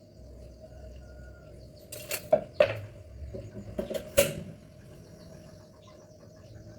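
A handful of sharp clicks and knocks in two short clusters, about two and about four seconds in, over a faint steady hum.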